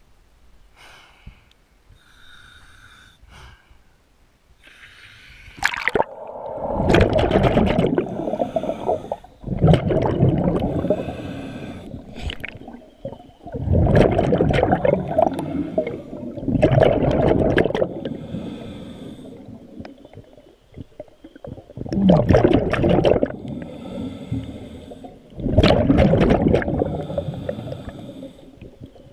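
Diver breathing underwater through a scuba regulator: after a quieter first few seconds come about six loud bursts of exhaled bubbles, a few seconds apart.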